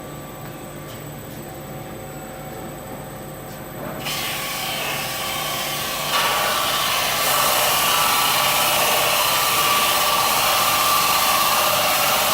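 Cosma 8H brush-sanding and texturing machine running with a steady hum. About four seconds in, a loud rushing hiss from its rotating brush heads sets in and grows louder in two more steps within the next three seconds, then holds steady.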